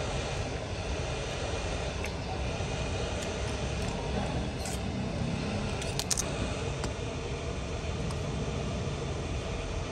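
Hot air rework gun blowing steadily, a constant rushing air noise, with a few light clicks of a metal pick chipping at the cracked back glass.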